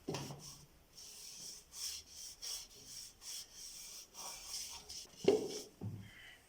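A series of short rubbing strokes on a turned maple wood piece, with no machine running. There is a knock at the start and a louder knock about five seconds in.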